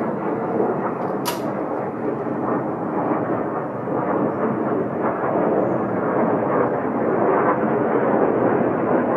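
A JAS 39 Gripen fighter's Volvo RM12 turbofan heard from the ground as the jet manoeuvres overhead: a steady rush of jet noise that grows a little louder toward the end. A short sharp click comes about a second in.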